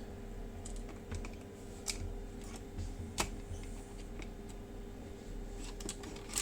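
A few scattered, sharp light clicks and taps of small hard parts being handled, over a faint steady hum.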